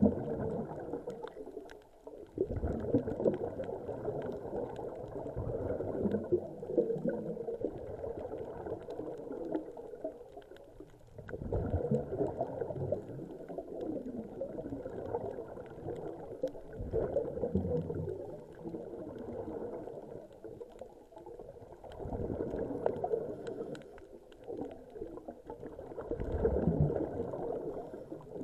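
Scuba divers breathing underwater through their regulators: gurgling rushes of exhaled bubbles that swell and fade every few seconds.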